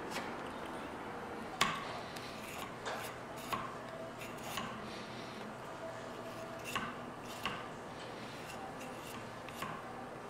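Knife work on honeysuckle wood: scattered short sharp clicks and taps of the blade splitting and shaving the stick, the loudest about a second and a half in.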